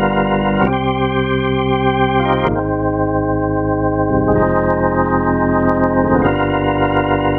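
Yamaha MODX+ synthesizer playing its "Hybrid Organ" preset: sustained organ chords that change about every two seconds, four chord changes in all.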